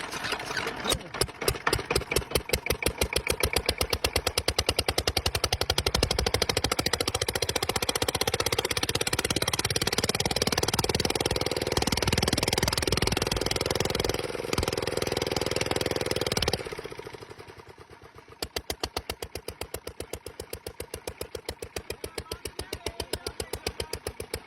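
An engine running with a fast, even beat, loud at first. About sixteen seconds in it drops back to a much quieter, steady idle.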